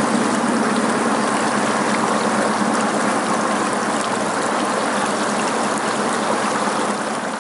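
Shallow stream water rushing over rock, with the whine of a 1/10 scale RC crawler's brushed motor and gear train as it drives up through the water.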